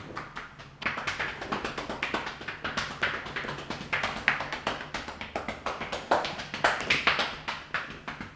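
Hands rapidly tapping and patting on a client's body in percussive massage (tapotement) at the close of a stretching session, several sharp taps a second, louder from about a second in.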